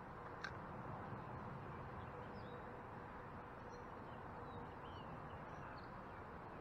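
Faint outdoor ambience with scattered short bird chirps throughout, and a single sharp click about half a second in.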